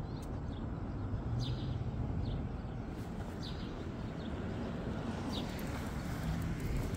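A bird chirping now and then: about five short, falling chirps spread over a few seconds, over a steady low outdoor rumble.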